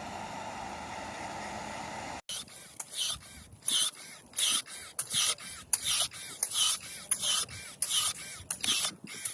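A steady hiss, then after an abrupt cut about two seconds in, a run of short scraping or hissing strokes at about two a second.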